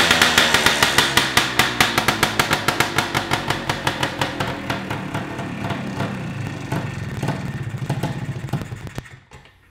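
1974 Kawasaki KT250 single-cylinder two-stroke trials bike engine running just after start-up, its firing slowing and fading until it stops about nine seconds in.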